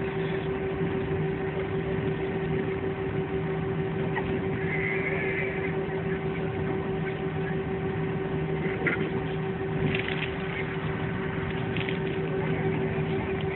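Steady jet airliner cabin noise: the engines' constant hum and rush with a steady droning tone, heard from inside the cabin, with a few faint clicks.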